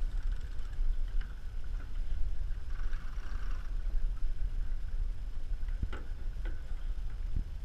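Wind rumbling on the microphone and water rushing along the hulls of a sailing catamaran under way, with a few light knocks in the last couple of seconds.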